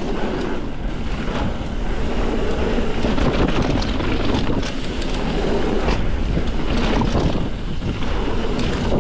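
Wind rushing over the camera microphone and mountain bike tyres rolling fast on a dirt trail, with the bike clattering over rocks about four seconds in.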